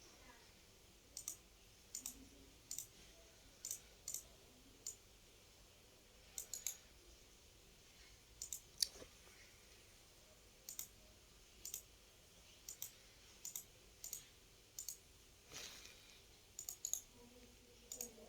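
Computer mouse clicks, single and in quick pairs, scattered irregularly about once or twice a second over faint room hiss, with a brief soft rustle about three-quarters of the way through.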